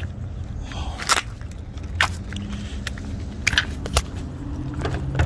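Scattered sharp clicks and knocks, about seven in all, from a car battery and its loosened terminal clamps and cables being handled as the old battery is pulled out.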